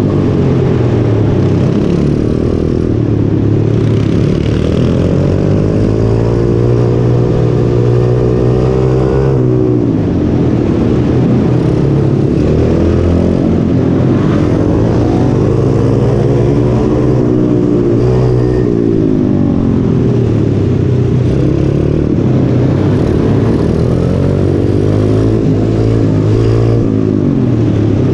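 Pit bike's single-cylinder engine heard from on board, revving up through each short straight and dropping off into each corner. The pitch climbs and falls again every four to five seconds.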